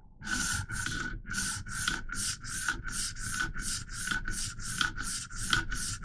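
A 600-grit diamond stone on a KME guided sharpener scraping dry along the S30V steel blade of a Leatherman Charge TTI, in quick even strokes, about three a second. It is a much smoother, finer scrape than that of a coarse stone, as the stone refines an edge that already carries a burr.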